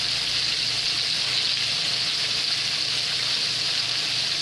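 Flour-dredged chicken strips frying in hot oil in a skillet: a steady, even sizzle.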